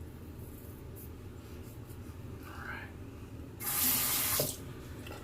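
Water runs from a tap for about a second, a little past the middle, against a steady low hum.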